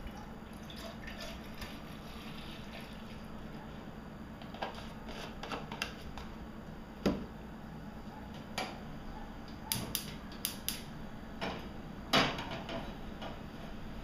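Milk poured from a carton into a stainless steel pot, then scattered knocks and clicks as the carton and pot are handled, the loudest about seven seconds in and again about twelve seconds in.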